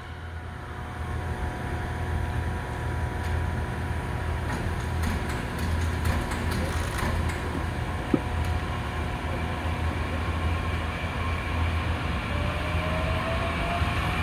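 E001-series Train Suite Shiki-shima at the station platform, its equipment running with a steady low hum and a few faint steady tones. Scattered light clicks come in the middle, and near the end a faint whine rises in pitch.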